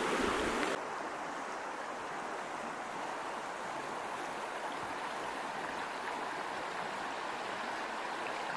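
River water rushing steadily past a log footbridge. Louder and hissier for about the first second, then an even rush.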